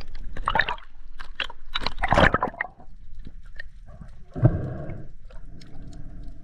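A spearfisher breathing hard through a snorkel, with water gurgling and splashing in the tube: noisy rasping breaths in the first half, then a gurgling breath about two-thirds through that carries on more steadily to the end.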